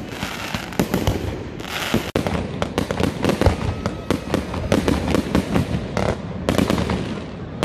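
Fireworks display: aerial shells bursting in a dense, irregular run of bangs and crackling pops, several a second, with no break.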